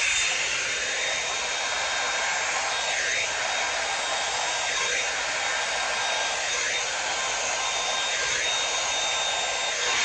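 Flat-faced hairdryer running steadily: a rushing blast of air with a thin motor whine, blowing wet poured acrylic paint outward across a canvas.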